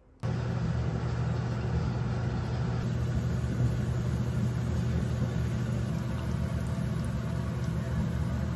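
Breaded cutlets deep-frying in oil in a stainless steel saucepan, sizzling and bubbling steadily over a steady low hum.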